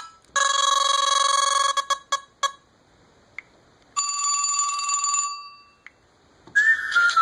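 LG Optimus L9 phone ringtones: a bell-like ringing chime held about a second and a half, two short pings, then after a pause another chime about four seconds in that fades out. A new whistle-like melody begins near the end.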